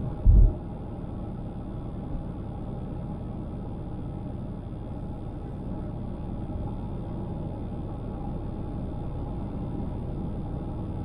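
Steady road and tyre rumble of a car driving along a highway, with one short, loud low thump a fraction of a second in.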